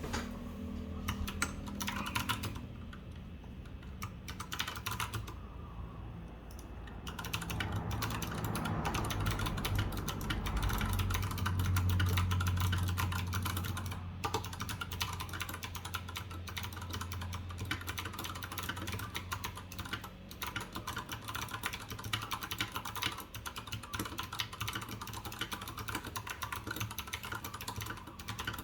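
Fast typing on a mechanical keyboard fitted with stock (unmodified) Clickiez 40g switches, a dense run of key clicks. A low hum runs underneath and swells in the middle.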